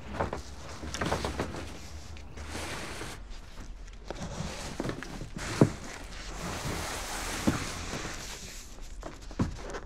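Boxes being handled while moving in: a few dull knocks and thumps over a steady background hiss, the loudest just past halfway.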